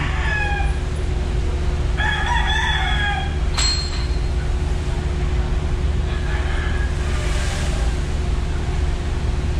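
Gamecocks crowing, one clear crow about two seconds in and a fainter one near seven seconds, over a steady low rumble of the ferry's engines. A sharp click sounds about three and a half seconds in.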